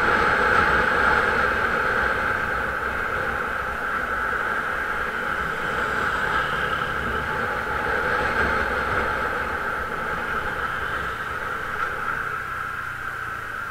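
Steady riding noise from an action camera on a moving vehicle: wind and road rumble with a constant high whine, fading slightly toward the end.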